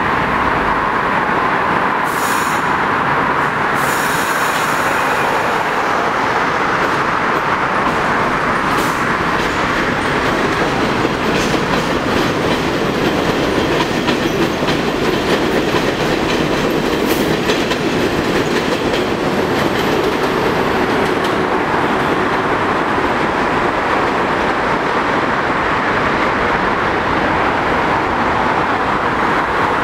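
Bombardier R62A subway train running on the elevated tracks: a steady, loud noise of steel wheels on rail, with a few brief high-pitched squeals or clicks a few seconds in.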